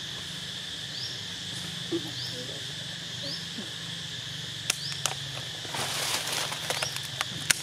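Insects droning steadily in a high, even band, with a short rising chirp repeating about once a second. A few sharp clicks and a brief rustle come in the second half.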